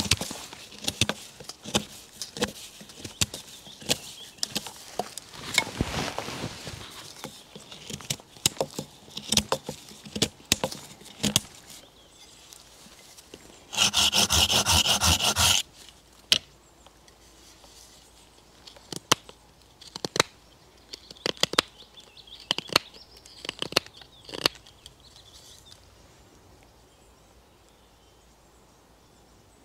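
A blade chopping and carving green hazel sticks into tent pegs: a run of sharp cuts and knocks into the wood, then a loud two-second scraping stretch about halfway through. After that come sparser knife cuts that die away near the end.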